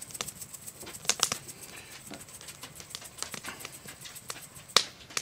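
Salt shaken from a shaker into a cupped hand: a run of quick, irregular ticks and taps, with a sharper click just before the end.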